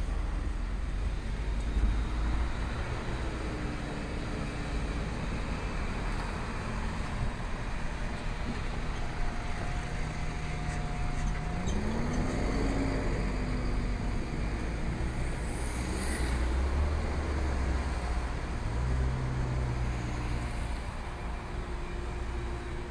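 Steady rumble of road traffic and distant passenger trains, with a few faint held tones and an engine note rising in pitch about twelve seconds in.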